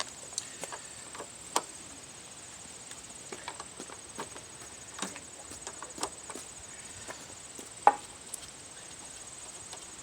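Irregular sharp metal clicks and clinks of a 10 mm wrench working a car battery terminal clamp loose, the loudest near the end. A steady high insect trill runs behind.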